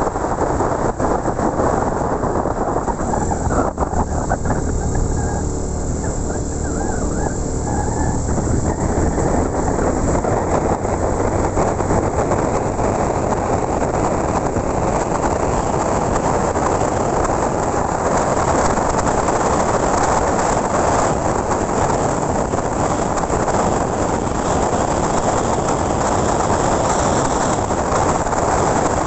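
Motorcycle riding along a road: a steady engine hum under wind rushing over the microphone. After about ten seconds the wind thickens and covers the engine tone.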